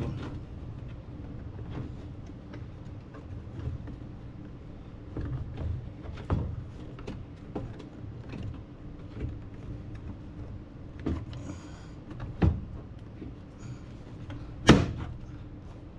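Aftermarket LED halo projector headlight housing for a 2013 Camaro being lined up and pushed into its mounting tabs, with scattered plastic clicks and knocks. The loudest knock comes near the end. A steady low hum runs underneath.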